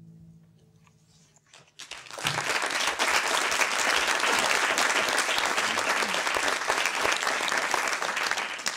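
An audience applauding, breaking out about two seconds in and holding steady, after the last notes of a song die away at the start.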